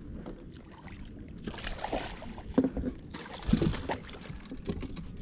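Water splashing in two bursts, about a second and a half in and again around three seconds in, as a hooked bass is fought in close to the boat.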